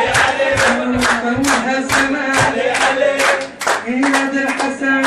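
Men's chorus singing a celebratory religious chant in unison on long held notes, over rhythmic group hand clapping about two to three claps a second. The singing drops out briefly a little after halfway, then comes back in.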